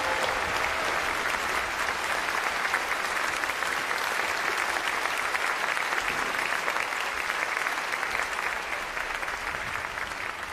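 Audience applauding steadily in a concert hall, a dense clapping that eases off a little near the end.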